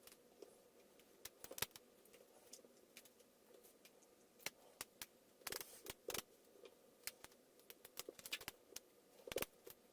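Light, irregular clicks and taps of small plastic parts of a screen-protector installation kit being handled and pressed into place, over a faint steady hum.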